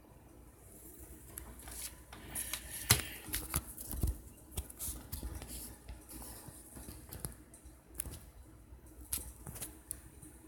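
Scattered small clicks, taps and brief scrapes of hands working with coil wire and small tools, with the sharpest click just before three seconds in.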